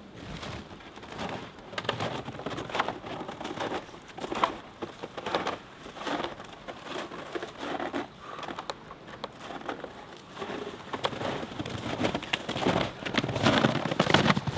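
Footsteps crunching through an icy crust into deep snow, about one step a second, a little louder near the end.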